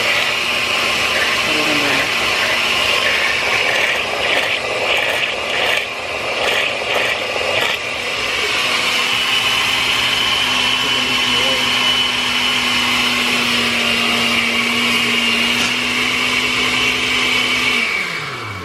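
Countertop blender running steadily, pureeing boiled guajillo chiles with a little broth into a thick chile paste. The motor's sound wavers for a few seconds in the middle, then it is switched off near the end and winds down.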